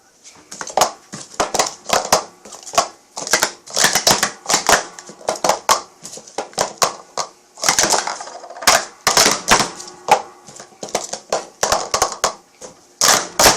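Plastic Speed Stacks sport-stacking cups clattering in quick, irregular clacks as they are stacked up and down in a timed run, with a louder clack near the end.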